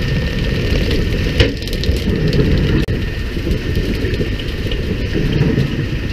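Fishing boat's engine running steadily under a hiss of water spray, with one sharp knock about a second and a half in.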